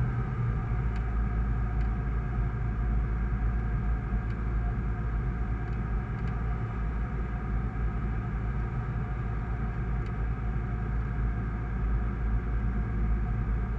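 Steady drone of a Sling 2 light aircraft's Rotax 912 flat-four engine and propeller in cruise flight, heard from inside the cockpit with a heavy low rumble. The pitch dips slightly about a second in, then holds even.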